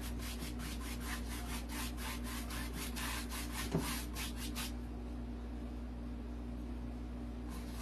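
A 1-inch bristle paintbrush scrubbing quickly back and forth on canvas, about four or five strokes a second, blending wet acrylic colours together. The strokes stop a little over halfway through, leaving a steady low hum.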